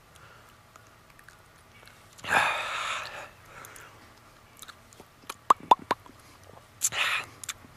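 A man chewing a mouthful of fermented herring and gagging on it. There is a loud gagging breath about two seconds in, a quick run of wet mouth clicks and smacks, and another short gag near the end.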